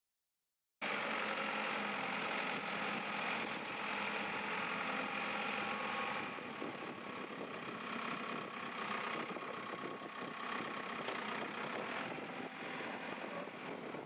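JCB 3CX backhoe loader's diesel engine running steadily, coming in about a second in, as the front loader arm lifts the opened 4-in-1 bucket; it drops a little in level after about six seconds.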